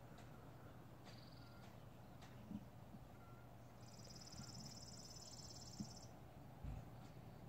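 Near silence: faint background with a high, rapidly pulsed trill for about two seconds midway, a few faint short chirps, and three soft handling bumps.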